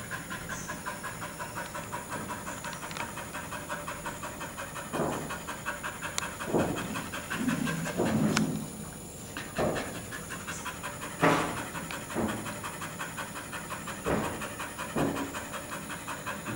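A dog panting fast and hard from heat and exertion, about five quick breaths a second. Several louder, sharper sounds break in from time to time.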